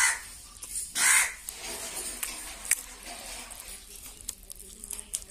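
A crow cawing twice, about a second apart, near the start; harsh calls, loud against the background.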